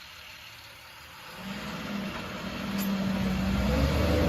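A vehicle engine picking up about a second and a half in, getting steadily louder and rising in pitch as it revs up.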